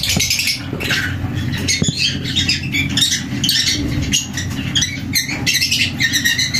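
African lovebird chicks in the nest box giving begging calls: a run of short, raspy, high-pitched chirps several times a second, over a steady low hum.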